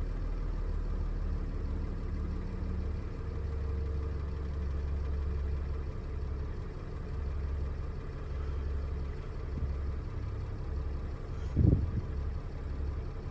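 Freightliner Sprinter's 3.0 L V6 diesel engine, freshly installed, idling steadily on its own as the accelerator is slowly let off, heard from inside the van. It is a low, even hum that wavers slightly.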